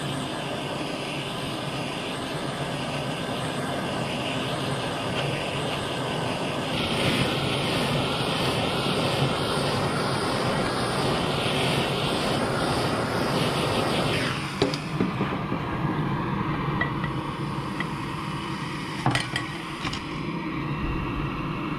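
Handheld gas torch burning with a steady rushing flame as it heats the carburettor body. It starts abruptly at the beginning. From about two-thirds of the way in, the flame noise is lower, and a ring spanner clinks a few times on the jacking nut.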